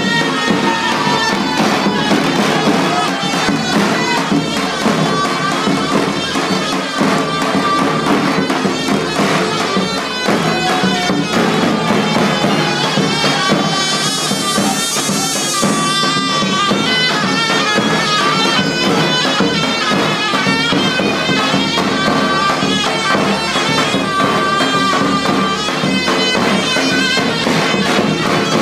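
Loud live Turkish folk halay dance music: a reedy, bagpipe-like wind melody, in the manner of a zurna, over a steady drum beat. A brief bright hiss, like a cymbal or tambourine, comes about halfway through.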